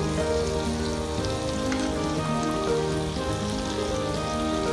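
Steaks sizzling in a frying pan, a steady crackle, with background music playing over it.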